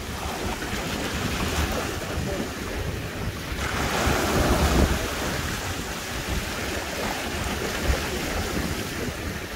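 Sea waves washing over rocks, with wind buffeting the microphone; the surf swells louder about four seconds in.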